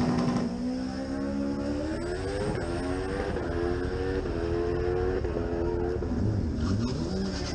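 Inline-four drag sportbike engine, held at the start line: its pitch climbs slowly in steps over several seconds with brief dips, then drops about six seconds in and wavers up and down near the end.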